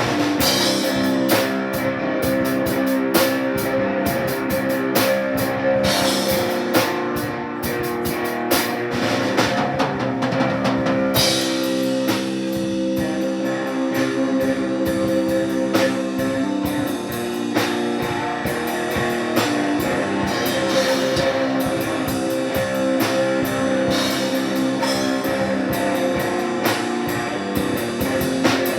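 Live instrumental rock played by a band on guitar and drum kit, with sustained guitar chords over a steady beat of drum hits.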